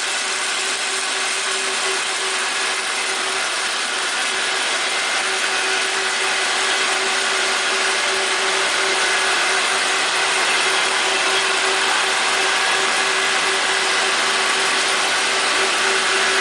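Mitsubishi 200H wire EDM machine cutting with its power and flush turned well down: a steady, dense crackle with a steady hum underneath.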